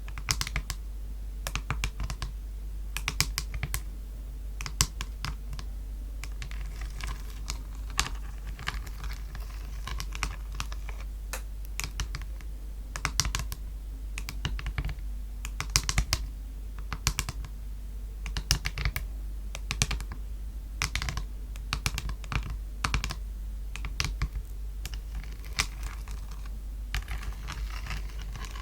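Tapping on a palette: quick, sharp clicks in irregular clusters of a few taps at a time, over a low steady hum.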